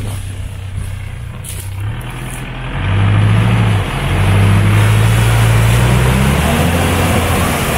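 Off-road SUV engine revved hard as the vehicle drives through a deep, flooded mud rut, with tyres churning mud and water. The revs climb sharply about three seconds in, dip for a moment, then stay high.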